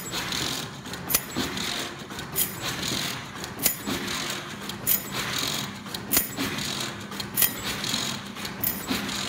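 Hexagonal wire mesh netting machine running, weaving galvanized wire into chicken mesh: a steady mechanical rattle with a sharp metallic clack about every second and a quarter and lighter ticks in between.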